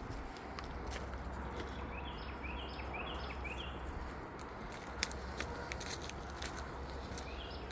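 Footsteps and dog paws on a walk, with scattered sharp clicks, over a low steady rumble. Runs of short high chirps come twice, near the start and again near the end.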